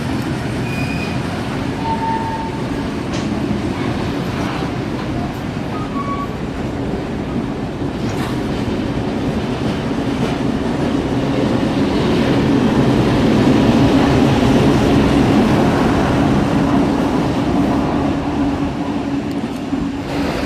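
A train running, a steady rumble that grows louder about twelve seconds in and eases off again near the end.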